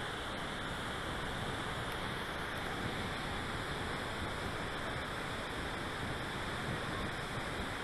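Niagara Falls' water pouring into the gorge below: a steady, even rushing noise across all pitches.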